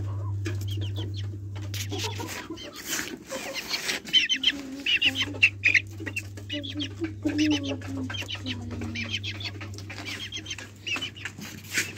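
Chickens clucking, with many short, high, repeated calls in the second half, over a steady low hum.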